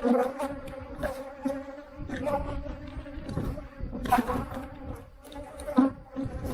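Honeybees buzzing around an opened hive, a steady hum. A few short knocks break in, the loudest near the end.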